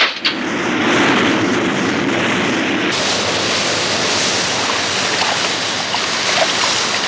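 Cartoon sound effect of rushing water, a steady wash of noise that starts suddenly with a couple of sharp knocks and turns hissier about three seconds in.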